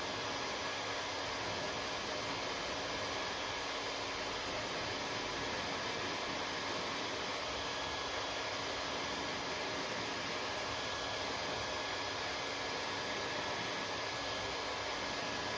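Hair dryer running steadily: an even rush of blown air with a few faint constant whine tones from its motor and fan.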